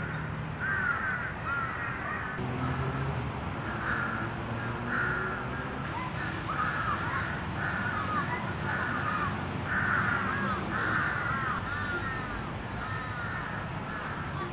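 Many birds calling repeatedly from the trees, short arched calls following and overlapping one another, over a low steady hum.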